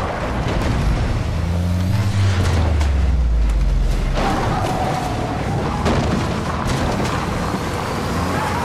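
Dramatic film sound mix: an SUV's engine under a dense, loud rumbling noise, with a deep falling boom from about one and a half to four seconds in and music underneath.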